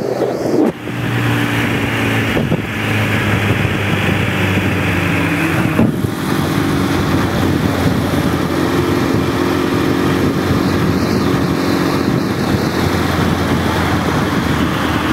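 Motorcycle engine running at a steady cruising speed, heard from a bike-mounted camera under heavy wind and road noise, with a few brief dips in the sound.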